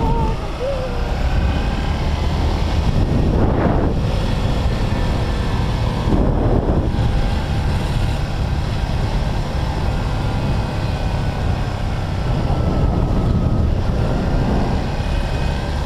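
Motorcycle engine running steadily while riding, its pitch drifting a little with the throttle, with wind rushing over the microphone.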